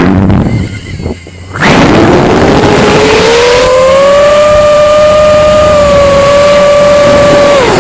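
5-inch FPV quadcopter's brushless motors and propellers whining with a rush of wind noise. The sound drops low for about a second, as if throttled back, then the pitch climbs and holds steady before falling away near the end.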